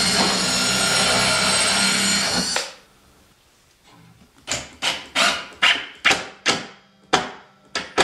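Cordless drill/driver running steadily for about two and a half seconds as it drives a screw into plywood, then stopping. About two seconds later comes a run of about nine short, sharp sounds, roughly two a second, each dying away quickly.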